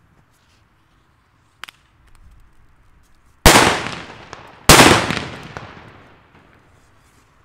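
Two Hua Liang Super Böller 3 flash-powder firecrackers exploding a little over a second apart, each a sharp, very loud bang with a long echoing tail.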